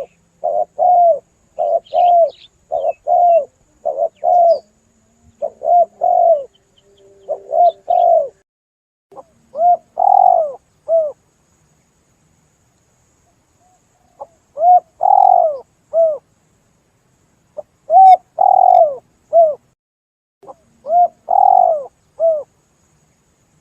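Spotted dove (tekukur) cooing. A quick run of short coos, about two a second, is followed by separate phrases of about three notes each, with pauses of a few seconds between the phrases.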